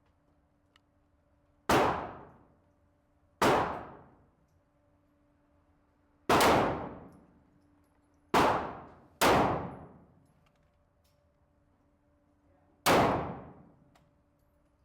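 Six pistol shots at uneven spacing, each a sharp crack with a ringing decay of about a second, two of them close together about two thirds of the way through.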